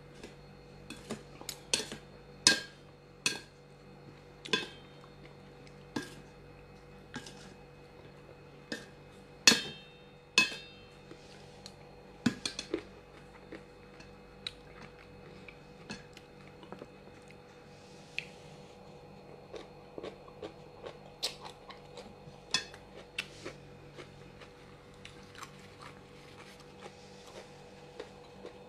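Tableware clinking and knocking while eating: irregular sharp clinks, some ringing briefly, about one a second, louder in the first half and fainter after about thirteen seconds.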